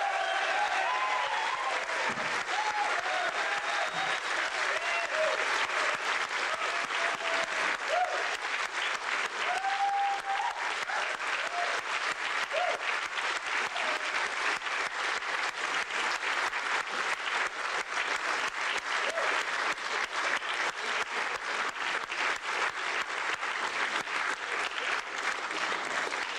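Audience applause: many hands clapping steadily, with a few voices calling out over it in the first half.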